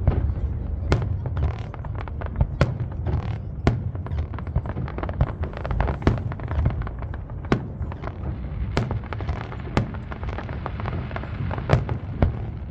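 Fireworks display: aerial shells bursting in a rapid, irregular string of sharp bangs over a continuous low rumble, with an echo rolling back off nearby buildings.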